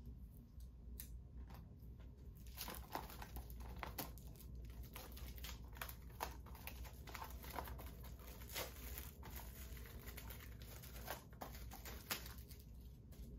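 Packaging from a 4K Blu-ray set being handled: crinkling and rustling with short sharp taps and clicks, quiet at first and busier from about two and a half seconds in.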